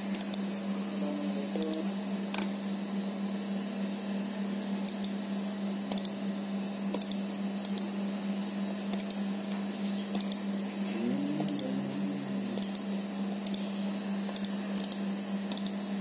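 Keys clicking on a computer keyboard, unevenly, about one or two a second, over a steady low electrical hum.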